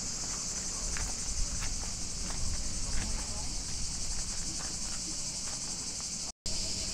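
Cicadas buzzing in a steady, high-pitched chorus, cut off briefly near the end.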